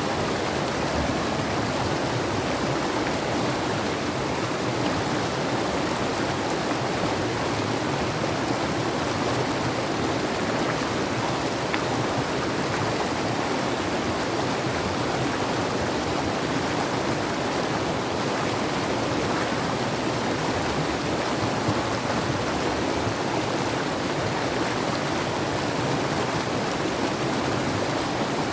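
Mountain river rushing, a steady, even noise of running water with no change.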